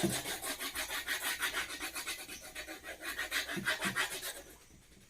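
Pencil shading on paper: quick back-and-forth scratchy strokes of the graphite, about ten a second, stopping near the end.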